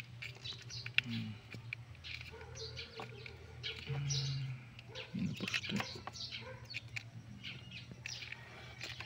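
Birds chirping in the background, with small clicks and scrapes of a plastic blade-fuse holder being worked open with a screwdriver, over a low steady hum.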